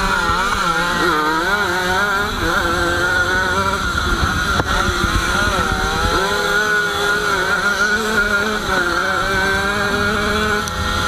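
Small two-stroke single-cylinder Jawa 50 motorcycle engine being ridden hard, its pitch rising and falling again and again with the throttle through the corners.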